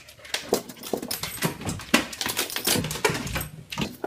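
A husky pawing and scrabbling at a metal baby gate: an irregular clatter of knocks, rattles and claw scrapes.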